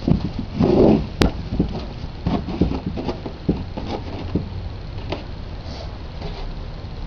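A tool roll packed with tools being rolled up by hand: rustling and a run of short knocks as the tools shift inside, with one sharp click a little over a second in.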